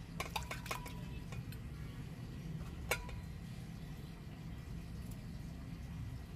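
A metal knife clinking against a stainless steel bowl: a few light clinks in the first second, then one sharper ringing clink about three seconds in, over a steady low hum.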